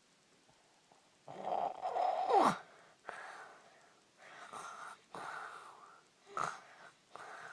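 Snoring in sleep: after a moment of quiet, one loud wheezing snort with a falling squeal, then five shorter rasping snoring breaths about a second apart.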